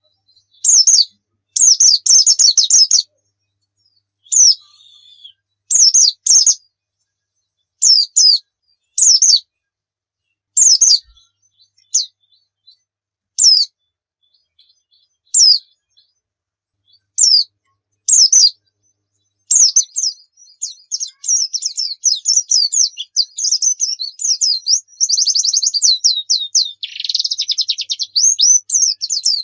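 White-eye (pleci) calling with short, high chirps every second or two, then breaking into a long, fast twittering song about two-thirds of the way through, with a buzzy trill near the end.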